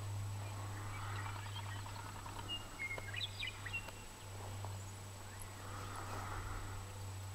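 Birds calling: a cluster of short chirps and whistles about three seconds in, with fainter rapid trills before and after, over a steady low hum.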